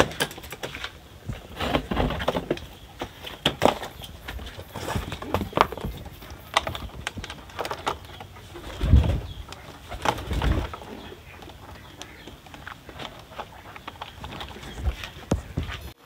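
Irregular knocks, clicks and rattles of bird cages and a wooden loft door being handled, with pigeons in the cages, and a couple of duller thumps past the middle.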